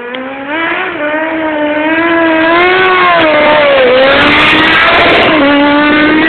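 Sport motorcycle engine revving hard during a wheelie, its pitch rising and falling as the throttle is worked. It grows louder as the bike comes close, with a dip in pitch about four seconds in.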